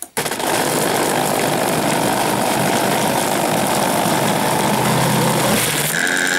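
Countertop blender switched on, its motor running at full speed as it blends a liquid smoothie of berries and fermented wild herbs. It starts abruptly, then runs steadily, and shifts to a higher steady whine near the end.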